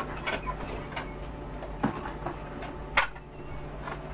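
Several sharp knocks and clicks, roughly one a second with the loudest about three seconds in, over a steady low hum.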